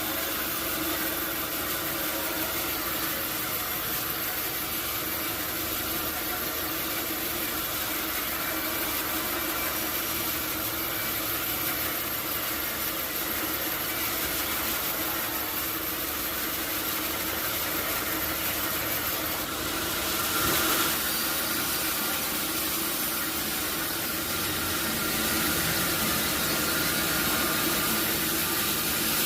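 Sawmill machinery running with a steady hum and several constant tones, with a brief louder surge about twenty seconds in and a slight rise in level near the end.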